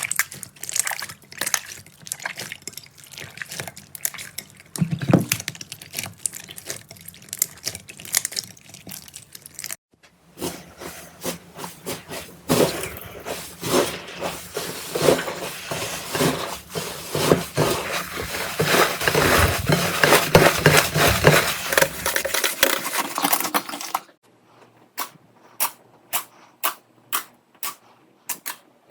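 Slime being squeezed and pressed by hand, with wet clicking, crackling and popping. It changes sound twice, with sudden breaks about ten and twenty-four seconds in, and the last part is a run of evenly spaced sharp pops, nearly two a second.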